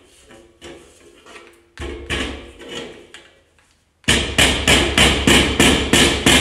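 Hammer blows knocking a furniture part into place: a few scattered knocks, then a quick, even run of about four strikes a second near the end.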